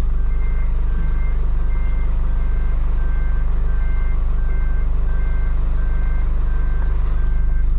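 Hino cab-over box truck reversing: its back-up alarm beeps steadily, a short high beep repeating a little more than once a second, over the steady low hum of the truck's engine.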